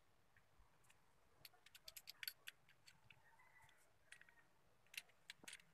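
Faint metallic clicks and ticks of a motorcycle transmission's shift drum, shift fork and gear cluster being turned and slid by hand. A quick run of clicks comes about one and a half to two and a half seconds in, with a few more near the end.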